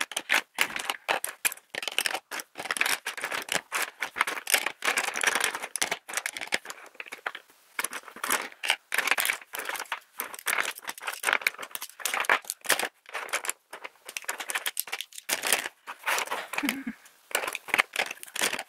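Makeup brushes clicking and rattling as they are picked up off a tabletop and dropped one after another into a clear plastic brush holder: a near-continuous run of light clicks, taps and scrapes of handles against the holder and each other.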